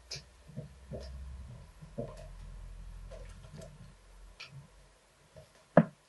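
Kittens scampering and pouncing on a laminate floor: scattered soft thumps and paw taps, with one sharp, louder thump near the end.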